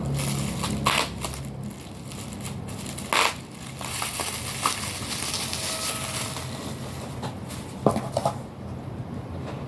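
Parcel packaging being opened by hand: continuous rustling and crackling of plastic wrapping, with a few sharper tearing or snapping noises about 1, 3 and 8 seconds in.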